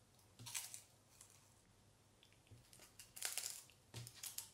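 Puffed rice cake being bitten and chewed: a few short, dry crunches with quiet gaps, one about half a second in and a quick run of them in the last second and a half.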